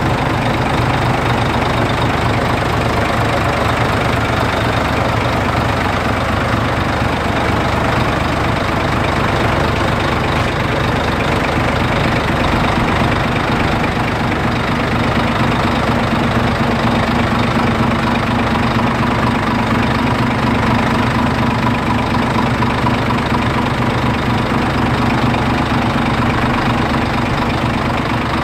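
Scania 124.420 tipper truck's straight-six diesel idling steadily.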